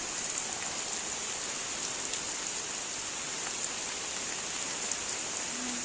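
Heavy typhoon rain falling steadily, a dense hiss with scattered individual drop hits.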